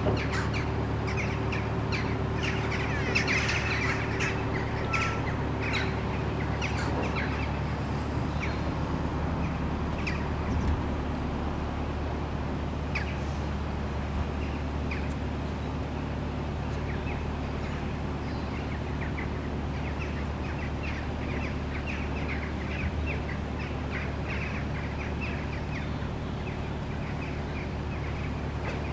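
Narrowboat's diesel engine running steadily, an even low hum, with birds chirping over it. The chirps are busiest in the first few seconds and again near the end.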